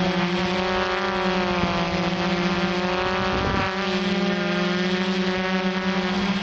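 Quadcopter's electric motors and propellers whirring steadily, a loud hum whose pitch wavers slightly as the rotor speeds adjust, with a brief low rush about halfway through.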